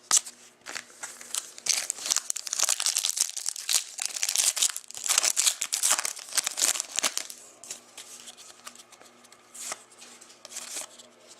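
A trading card pack's wrapper being torn open and crinkled, with cards being handled. The crinkling is densest from about a second and a half in until past the middle, then drops to quieter handling with scattered clicks.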